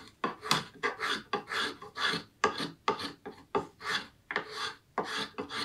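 Small boxwood spokeshave with an O1 tool-steel blade taking quick, even shaving strokes through green black walnut, between two and three short scraping cuts a second.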